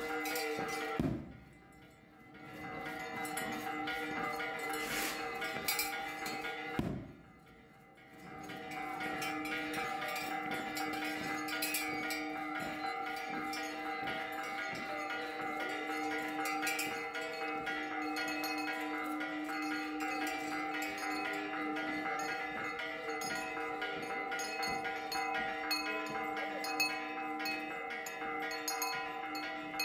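Bells chiming steadily, a wash of overlapping ringing tones that drops away briefly twice, about one and seven seconds in.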